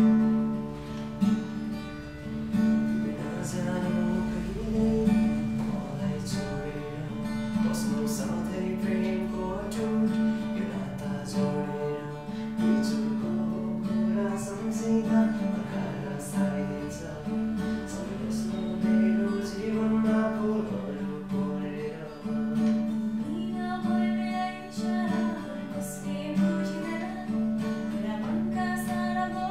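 Music: an original composition with a sustained low note underneath and a moving melody line on top.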